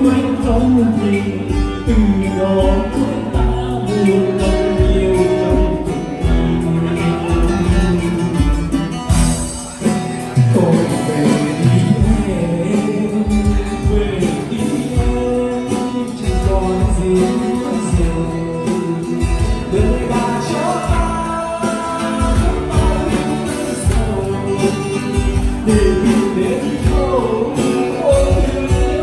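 Live band playing a song: a man singing over acoustic guitars, bass and a steady beat.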